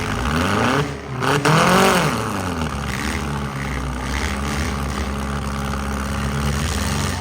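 Demolition derby car engines running, with one engine revving up and back down hard about one and a half to two and a half seconds in.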